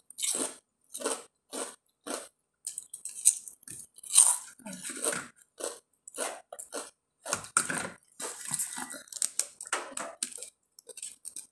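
Crunching and chewing of a crisp fried cassava flatbread (salbaro), a quick irregular run of sharp crunches as it is bitten and chewed.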